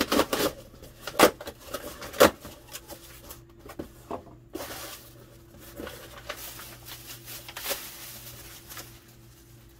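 A cardboard shipping box being opened by hand: a few sharp knocks and rips of the flaps in the first couple of seconds, then rustling as a plastic bag and paper are pulled out.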